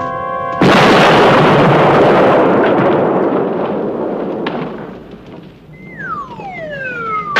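A bomb explodes about half a second in: a sudden loud blast that rumbles and slowly dies away over several seconds. Near the end a falling whistle-like tone glides down.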